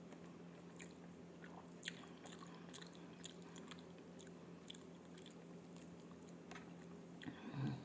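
A person quietly chewing a mouthful of rice and fried tempe, with faint wet clicks of the lips and mouth picked up close by a lapel microphone over a steady low hum. A brief murmur near the end.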